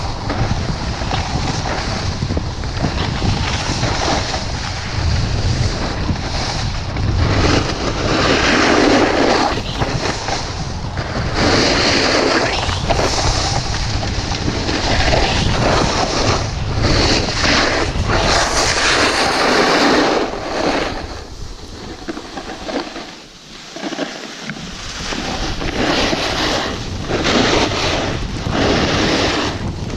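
Wind buffeting the microphone and a snowboard sliding and scraping over snow on a run, rushing in surges of hiss with a steady low rumble, easing off briefly about two-thirds of the way through.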